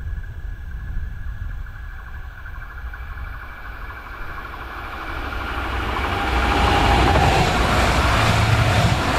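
Electric multiple-unit passenger train approaching and passing close by, its rumble and rail noise swelling from about halfway through and staying loud to the end, with a faint whining tone as it goes by. Before the train arrives there is only a low rumble.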